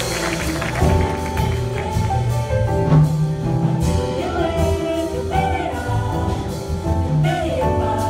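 A vocal jazz choir singing in close harmony into microphones: held chords with several voices stacked over a sung bass line. A little audience clapping at the start.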